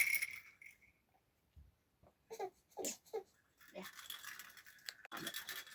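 A young child's voice making a few short cries about two and a half to three seconds in. A brief burst of noise comes at the start, and a steady hiss of noise sets in near the end.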